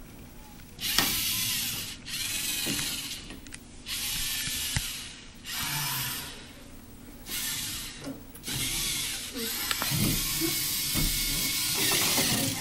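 A LEGO Mindstorms robot's electric motors and plastic gears whirring in a series of short drives, each about a second long with brief pauses between, then a longer run in the last few seconds.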